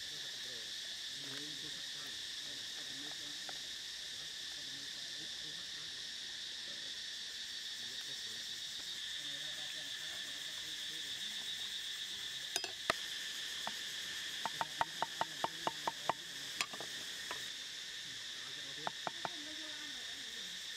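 Insects chirring steadily throughout, with a quick run of sharp taps from a cleaver on a wooden chopping board about two-thirds of the way in and a few more near the end.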